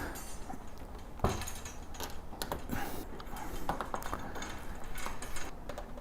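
Metal compost tumbler parts clinking and knocking together as panels are handled and fitted, with scattered small clicks and one sharper knock about a second in.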